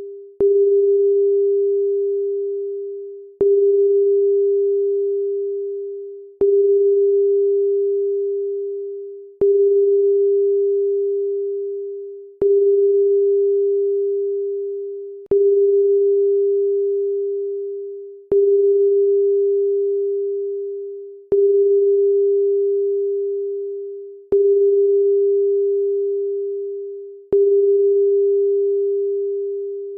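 A single pure tone of one steady pitch, sounded ten times about three seconds apart. Each one starts with a click and fades away.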